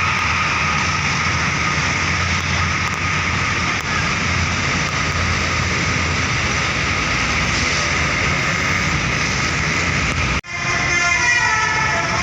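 Heavy road traffic, with a large vehicle's engine running under a steady high tone. Near the end the sound cuts off abruptly, and a multi-tone horn follows in falling notes, typical of a bus's telolet horn.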